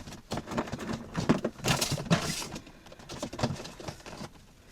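Rustling and light clicks and knocks of small items being handled and picked through, irregular and in short bursts.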